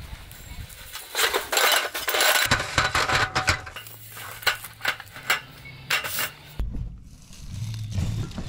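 Light metallic clattering and clicking from a slatted aluminium roll-top camp table being unrolled and set on its folding frame. Near the end this gives way to muffled handling and rustling as gear is rummaged in a storage compartment.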